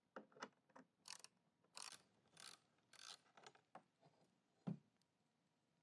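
Ratchet wrench turning out a 7/16 bolt on a floor scrubber's pedal bracket: a run of short, faint ratcheting strokes, one every half second or so, with a single knock near the end.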